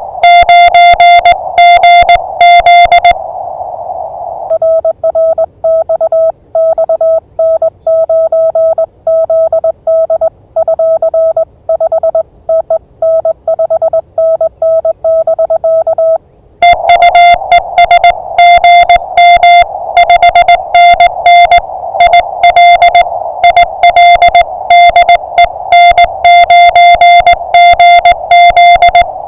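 Morse code (CW) from an amateur radio transceiver: a single pitched tone keyed on and off in dots and dashes. For the first few seconds, and again from a little past halfway, the keyed tone is harsher and buzzier. In between it is cleaner and sits over a hiss of band noise, as two signals trade in the exchange.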